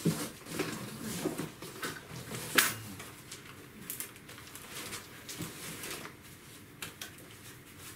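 Handling noises while a laptop is being unboxed: scattered clicks, taps and rustles of packaging, the sharpest click about two and a half seconds in, growing quieter near the end.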